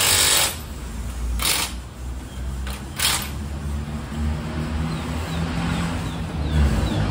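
Cordless drill/driver run in short bursts, about four in the first three seconds, driving the bolts of a steel rear rack on a motorcycle. A low steady hum runs underneath.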